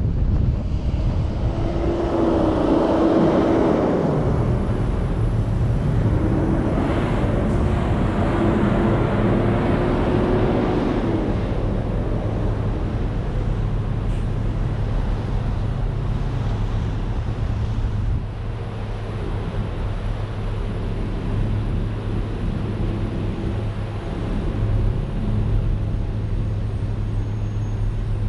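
A 2018 Nissan Armada's road and engine noise as the SUV rolls along and slows to a stop in traffic. A wavering whine comes and goes during the first ten seconds or so. After that it settles into a steady low hum of the V8 idling at the light.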